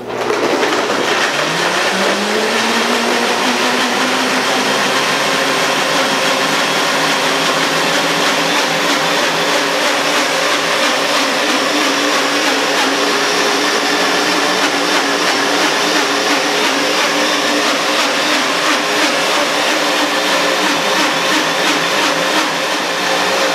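Ninja Ultima blender motor starting at speed 10, its whine rising over the first couple of seconds, then running loud and steady at full speed as it blends ice, leafy greens and water in the full-size pitcher.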